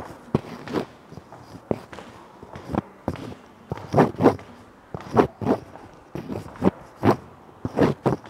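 Footsteps on hard stairs: sharp, unevenly spaced shoe strikes, about one to two a second, some landing in quick pairs.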